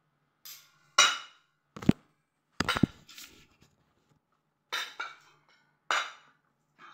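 Metal fork and spoon clinking and scraping against a ceramic plate, about six separate clinks, with dull knocks mixed into the two near the two- and three-second marks.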